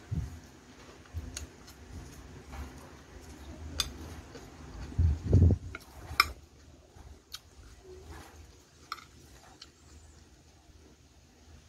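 Metal spoon clicking and scraping against a plate of food, with a few low thumps, the loudest about five seconds in.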